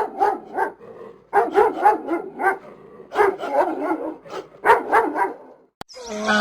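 Dog barking in quick bursts of short barks, about four a second, with brief pauses between bursts; it stops near the end and a click follows.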